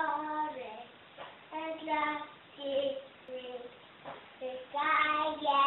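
A young girl singing unaccompanied: a string of short sung phrases with held notes and brief pauses between them.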